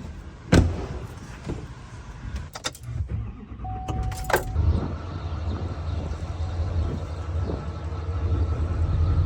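Pickup truck: a few clicks and rattles of keys and handling, a short beep, then the engine running with a steady low rumble from about halfway through.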